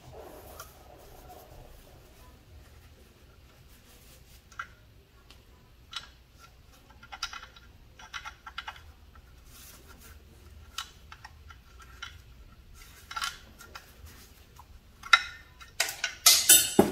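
Hand tools working on engine bolts: scattered clicks and small metallic clinks of a socket ratchet, in short clusters that come closer together and louder near the end.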